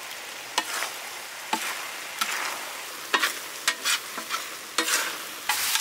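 Prawns and squid sizzling in a large wide metal pan while a metal spatula stirs them, scraping and clinking against the pan several times. The sizzle grows louder near the end as the spiced seafood fries dry.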